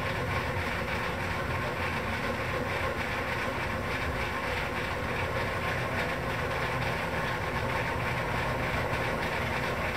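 Hardinge Model HC second-operation lathe running with its spindle turning and the carriage power feed engaged: a steady, even mechanical hum.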